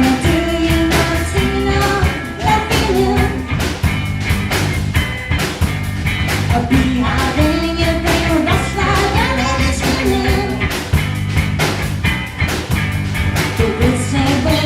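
Three-piece rock band playing live and loud, with sung vocals over a driving beat.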